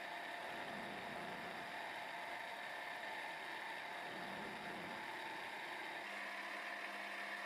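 X3 milling machine running steadily, its home-made 0.6 module involute gear cutter cutting teeth into a mild steel gear blank: a steady mechanical hum with a whine. About six seconds in, the low rumble drops away and leaves a steadier hum.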